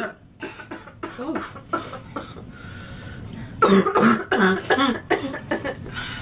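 A young woman coughing repeatedly from smoke she has inhaled: a run of short, hard coughs, a brief breathy pause in the middle, then a louder cluster of harsh coughs. The coughing comes from a throat burning from the smoke.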